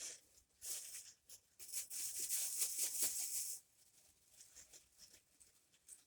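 Rustling, crinkling handling noise in several bursts, the longest running from about 1.5 s to 3.5 s in, then it stops and only faint small noises remain.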